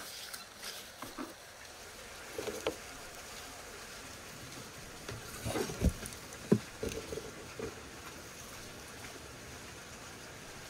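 Raw lamb carcass being handled on a wooden cutting board: scattered dull knocks and thumps as the meat is shifted and set down. The two loudest come about six seconds in, over a steady outdoor background hiss.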